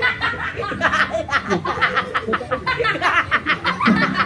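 Boys laughing hard, a quick run of breathy laughs with no words.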